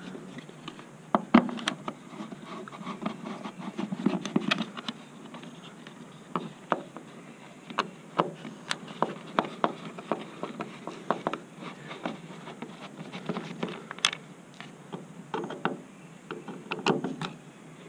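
T15 Torx screws being backed out of a square-body Chevy taillight lens with a screwdriver: scattered clicks and scrapes of the driver bit and the plastic lens, coming in small clusters.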